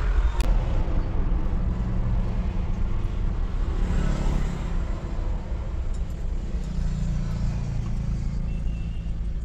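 Motor vehicle engine running: a steady low rumble that swells about four seconds in and again near seven seconds.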